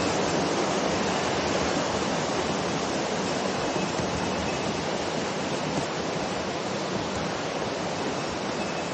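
Mountain river rushing over rocks: a steady, even roar of flowing water.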